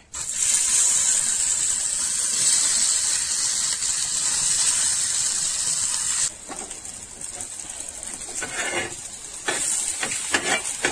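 Loud sizzling hiss of okra frying on a hot flat iron tawa, starting suddenly and cutting off about six seconds in. After that there is quieter scraping as the fried okra is scraped off the tawa with a knife onto a steel plate.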